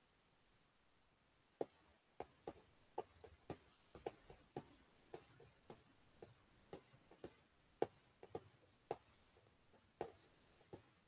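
Faint, irregular sharp clicks, about two a second, starting about a second and a half in, over near silence.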